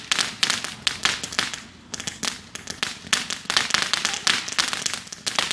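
Small consumer firework crackling and popping rapidly in a dense string of sharp cracks, with a brief lull a little under two seconds in before the crackling picks up again.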